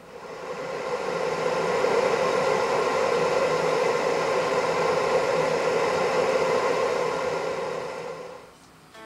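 Steady hiss of a single gas burner heating a stainless steel kettle of water, building up over the first second or so and fading out near the end.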